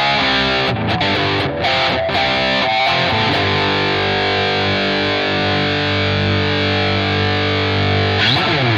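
Epiphone Prophecy SG electric guitar with Fishman Fluence humbuckers, played with heavy distortion: a choppy riff of short notes, then a chord held ringing for about five seconds, ending in a sliding sweep of pitch near the end.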